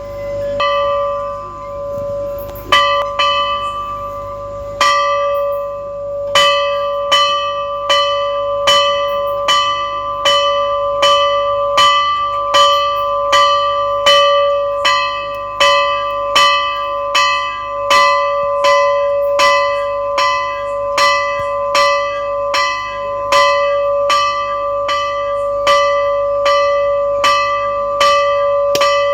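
Temple bell being rung over and over. There are a few spaced strikes at first, then steady strokes a little more than once a second, its tone ringing on between strokes.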